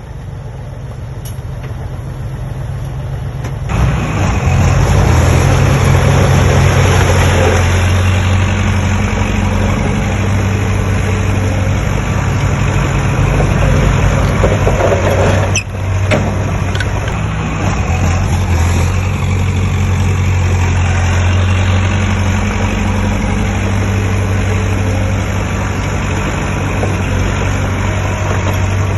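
Heavy diesel engine running steadily, stepping up louder about four seconds in, with a brief sharp knock and dip about halfway through.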